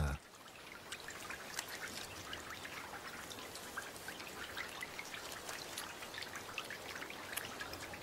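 Steady rain falling, a continuous hiss with many small patters and drips.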